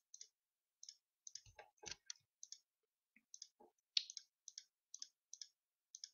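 Faint computer mouse clicks, irregular at about two or three a second, as edge vertices are selected one after another.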